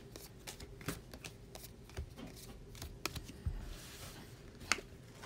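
Magic: The Gathering trading cards being handled and laid on a table: scattered light clicks and flicks, a brief soft rustle of sliding cards a little past the middle, and a sharper click near the end.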